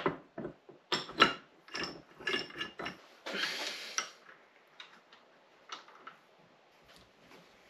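Irregular metal clicks and clinks of a C-frame ball joint press being fitted over an upper control arm and its forcing screw run down to push out a bushing, with a short rough scraping noise about three seconds in. The clicking thins out near the end.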